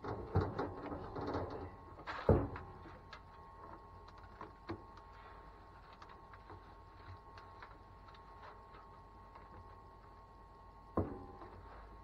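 One-handed trigger bar clamps being set on a board: a run of ratcheting clicks and knocks in the first couple of seconds with a sharp knock about two seconds in, then scattered small clicks, and another knock near the end.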